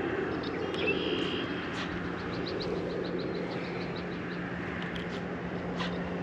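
Steady outdoor background rumble with a low hum, and a quick run of faint high ticks near the middle.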